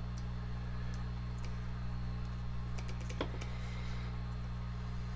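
Scattered light clicks and taps of small plastic and metal parts as a corded drill's trigger switch and wiring are handled, the sharpest a little after three seconds in, over a steady low hum.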